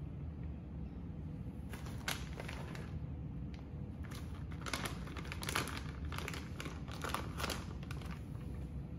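Plastic bag of shredded cheese crinkling as it is squeezed and shaken out over a baking dish. The crinkles come in irregular bursts from about two seconds in and are busiest in the middle.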